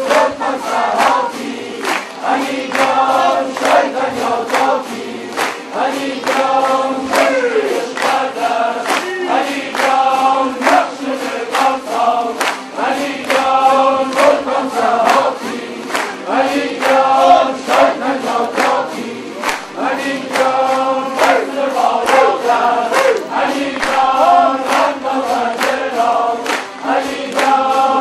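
A large ensemble of tanburs, long-necked Kurdish lutes, strummed together in a fast, steady rhythm over a sustained low drone, with many voices singing in unison.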